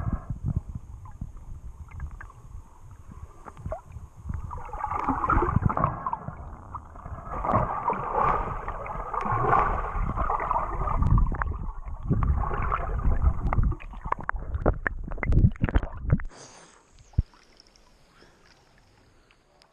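Muffled water sloshing and gurgling around a camera held underwater by a swimmer, swelling and easing every couple of seconds. About three-quarters of the way through it drops away suddenly to a faint hiss as the camera comes to the surface.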